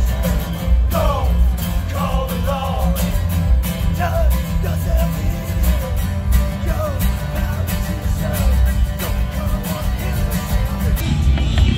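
Rock music: a voice singing over drums, bass and guitar, with the drums hitting steadily.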